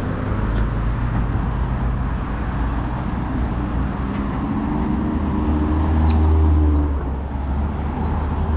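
City street traffic: a steady low rumble of road noise, with a motor vehicle's engine passing close by, loudest about six seconds in.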